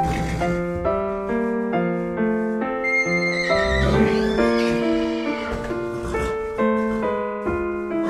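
Piano music playing a run of notes, with a horse whinnying over it about three to four seconds in.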